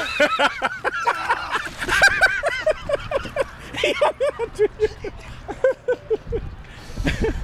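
A tarpon's splash as it strikes at a hand held over the water, then a long run of hearty laughter: quick 'ha' notes, three or four a second, slowly falling in pitch for about six seconds.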